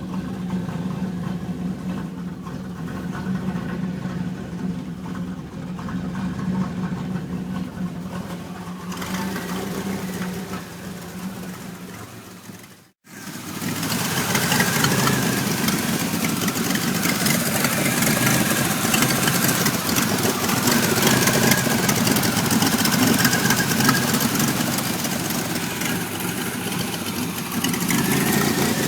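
1991 Pontiac Firebird's 3.1-litre V6 idling roughly, the rough idle that the owner is trying to cure while it keeps setting trouble codes 33 and 43. It cuts out briefly about halfway, then comes back louder.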